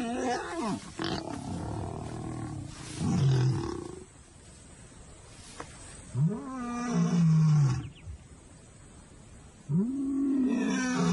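A male lion roaring territorially in a bout of three calls about three seconds apart, each rising and then falling in pitch, the first short and the last two longer. A brief snarl from the mating pair comes at the very start.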